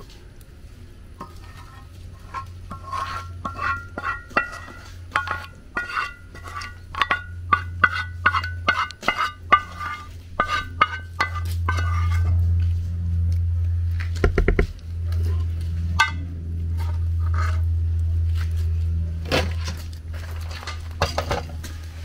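Metal utensils and cookware clinking in quick, ringing knocks, about three or four a second, through the first half; after that a steady low hum comes up under a few scattered clinks.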